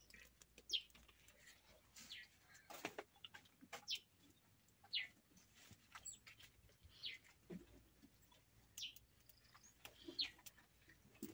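Faint, scattered bird chirps, a short call every second or two, over near silence.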